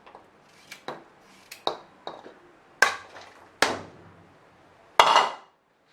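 Kitchen clatter: about half a dozen irregular knocks and clinks of utensils against a pot and dishes, some with a short metallic ring. The last and loudest comes about five seconds in and cuts off suddenly.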